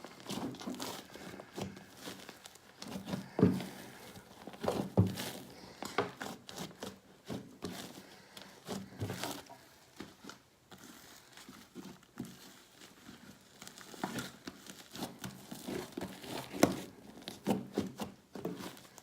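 A large batch of fluffy slime being kneaded and pulled in the hands: irregular sticky squishing, crackling and tearing sounds. The slime is overactivated, so it tears rather than stretches.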